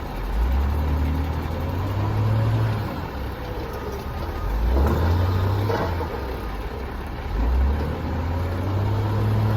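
Vehicle engine pulling under load, its pitch climbing in steps and dropping back three times, as when a truck works up through its gears.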